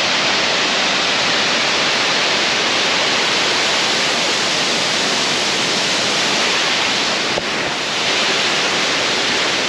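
Waterfall, a loud, steady roar of falling water.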